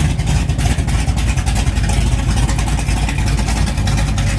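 Hot-rodded 1969 Dodge Charger engine running steadily at idle, a loud, rapid pulsing from the exhaust.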